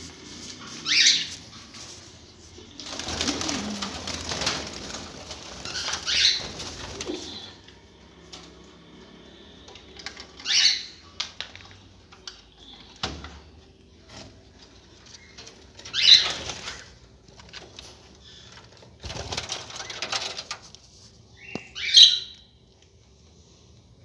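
Budgerigars in an aviary giving short, sharp high chirps every few seconds, with two stretches of wing fluttering lasting a couple of seconds each.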